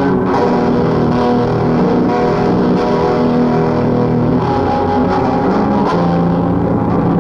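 Lo-fi cassette home recording of guitar music: dense, held chords that shift every second or so, with a dull, muffled top end. It was taped on a portable dictation recorder picking up another cassette recorder through the air.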